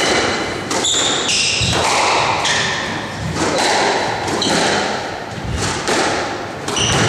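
Squash rally: the ball struck by rackets and smacking the walls with sharp, echoing thuds about once a second, with short high squeaks of court shoes on the wooden floor.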